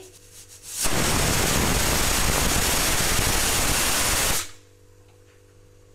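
Stovetop aluminium pressure cooker whistling: steam hisses loudly and steadily out of the weighted valve for about three and a half seconds, starting about a second in and cutting off suddenly. This whistle is the sign that the cooker has reached pressure.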